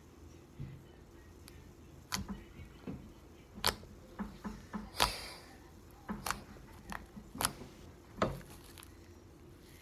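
Slime being pressed and kneaded by hand on a tabletop: a dozen or more short, sharp squelches and clicking pops of trapped air at irregular intervals.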